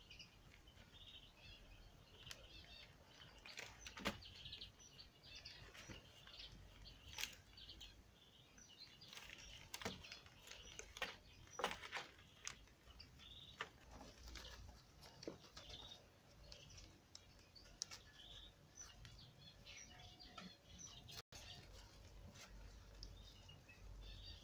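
Faint scratching, rustling and small clicks of two kittens' paws and claws on glossy paper leaflets and cardboard as they play-fight, with faint high chirps now and then.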